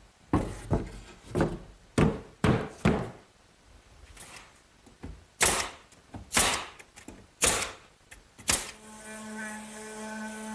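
Pneumatic nail gun firing about ten nails through plywood into a wooden frame. It fires a quick run of six shots, then after a short pause about one shot a second, each a sharp crack with a hiss of air. Near the end a power sander starts up and runs with a steady hum.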